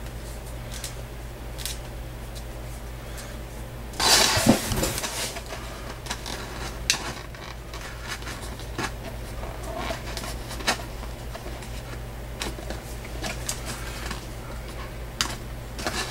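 Handling noise of a leather disc being pushed into a thin plastic cup and worked with the fingers: a loud crinkling rustle about four seconds in, then scattered small clicks and crackles from the plastic cup and leather, over a steady low hum.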